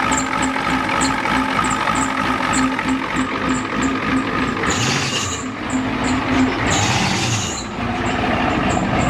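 1993 Ford F-250's 7.3L IDI V8 diesel running with a steady rhythmic clatter, swelling louder twice around the middle. It runs rough and misses, which the owner puts down to injection timing that is not right.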